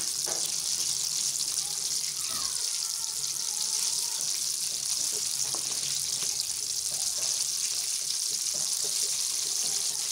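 Chicken pieces deep-frying in hot oil in a pan: a steady hissing sizzle of bubbling oil.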